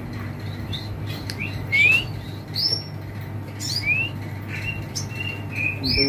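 Caged songbirds calling: short rising whistled notes, about one a second, over a low steady hum.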